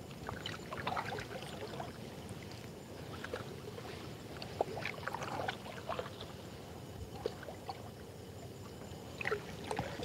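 Water lapping, splashing and dripping around a small boat moving through the water, in irregular small splashes.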